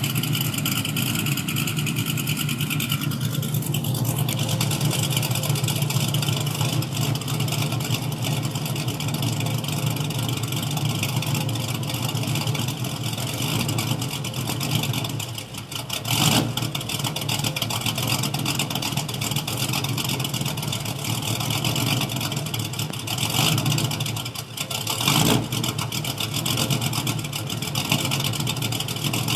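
A Ford Mustang GT's 4.6-litre V8 idling through long-tube headers, a catless X-pipe and SLP LM1 mufflers, with HP S292 cams on the stock tune. Twice, once about halfway and once near the end, the sound dips briefly and then comes back in a short louder surge.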